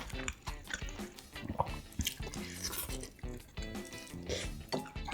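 Background music, with many short wet clicks and drips over it.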